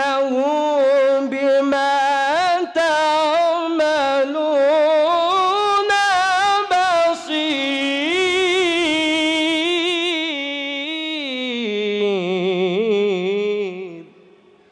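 A man reciting the Quran in a long, melodic, drawn-out phrase, his voice ornamented with fast wavering turns. The pitch climbs through the middle of the phrase and sinks lower near the end, then the voice stops about fourteen seconds in.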